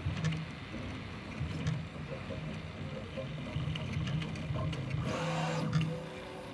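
Prusa i3 MK3S 3D printer at work: its stepper motors hum in short, changing pitches as the print head moves over the part. The sound grows louder and brighter for about a second around five seconds in.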